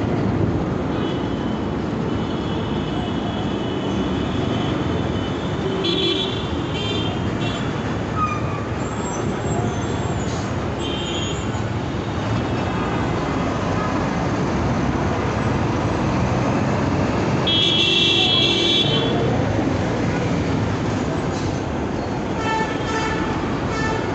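Dense city road traffic with a steady rumble of engines and tyres, and vehicle horns honking again and again; the longest, loudest horn blast comes about three quarters of the way through.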